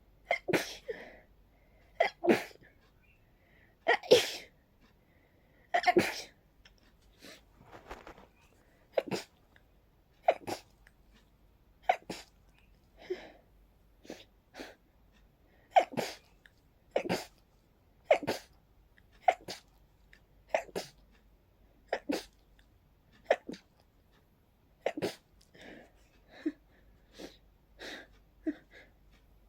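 A person sneezing over and over in a rapid fit, about twenty short sharp sneezes, most about a second apart. It is an allergic sneezing fit, which the uploader puts down to pollen.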